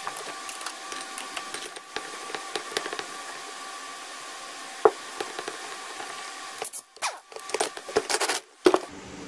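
Several short, loud bursts near the end from an air impact wrench driving the centre bolt of a flywheel puller to pull the flywheel off a 1975 Johnson 4 hp outboard powerhead. Before that, a steady hiss.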